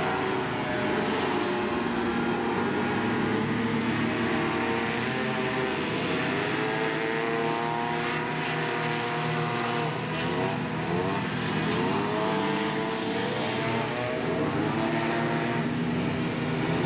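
Several racing hovercraft running together, their engines and ducted propeller fans making a steady buzz of overlapping pitches. The pitches slide up and down as the craft pass and change throttle, most clearly in the second half.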